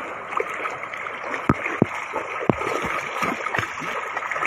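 Shallow surf washing in, with a child splashing in it; a few sharp slaps of water between about one and a half and two and a half seconds in.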